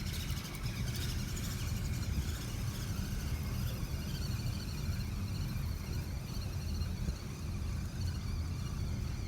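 Wind rumbling on the microphone over a steady hiss, with no distinct events.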